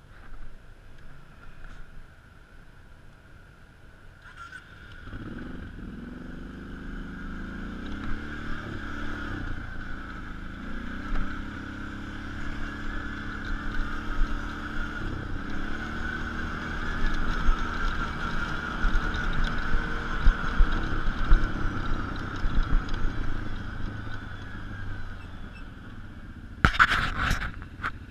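Off-road motor vehicle engine picking up about five seconds in and running hard, its pitch rising and falling as the throttle and speed change. A short loud burst of noise comes near the end.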